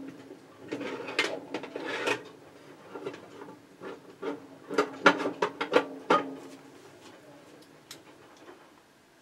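Rummaging for a small screwdriver: irregular knocks, clicks and rattles of tools being moved about and a drawer handled, busiest around the middle and thinning out near the end.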